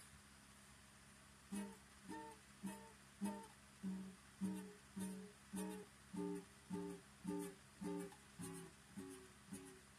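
Guitar chords struck one at a time in a steady rhythm, about two a second, each ringing briefly and dying away. The chords start about a second and a half in, after a steady faint hiss.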